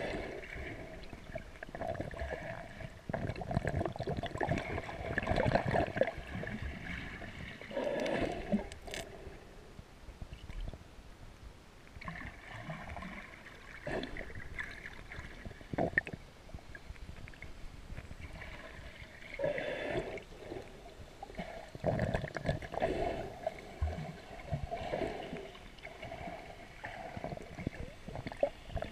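Seawater sloshing and gurgling in uneven swells around a camera held underwater, with a few short knocks.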